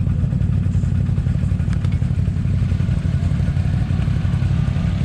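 An ATV engine running steadily.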